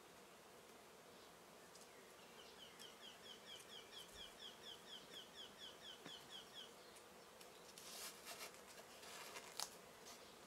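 Faint, steady buzzing of a honeybee colony at an open top-bar hive. A bird sings a quick run of rising chirps, about four or five a second, for a few seconds; then wooden top bars rustle and knock as they are shifted, with one sharp knock near the end.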